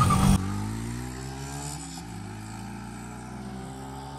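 A vehicle engine pulling hard under acceleration, its pitch climbing steadily, dipping briefly about two seconds in, then climbing again. It follows a louder burst of noise that cuts off sharply half a second in.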